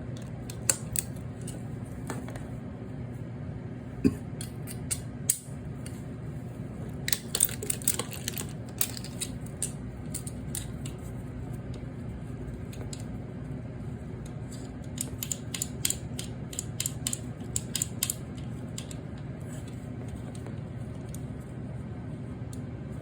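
Light metal clicks and clinks from hand tools and motor parts as a condenser fan motor's long through-bolts are worked out, in scattered single clicks and short clusters. Under them runs a steady low hum.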